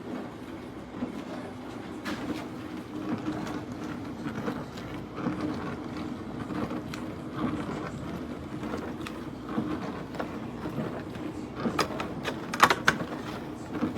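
Countertop mini dishwasher running, a steady churning rumble, with a few sharp clicks near the end.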